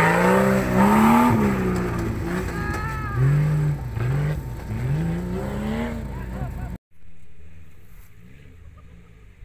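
An off-road 4x4's engine revving up and falling back again and again, several rises in pitch a second or so apart. About seven seconds in it cuts off abruptly to a much quieter engine running.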